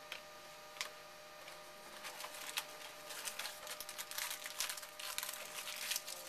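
Trading cards and their foil pack wrapper being handled: a couple of faint clicks, then from about two seconds in a dense run of crinkling and rustling.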